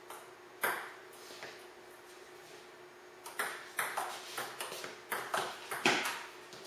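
Table tennis ball clicking off paddles and the tabletop in a quick back-and-forth rally, a few hits a second, beginning about three and a half seconds in. A single ball bounce comes near the start, before the rally.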